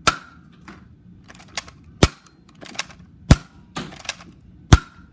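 Nerf Hammershot blaster being cocked and fired repeatedly: sharp plastic snaps and clicks, four loud ones roughly a second and a half apart with lighter clicks between.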